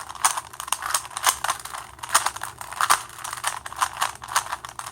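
A Rubik's 3x3 cube being scrambled by hand: quick, irregular plastic clicks and clacks as the layers are twisted, several a second.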